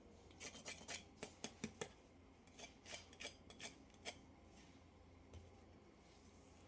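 Two quick runs of short, sharp clicks or snips, about a dozen in all, stopping about four seconds in.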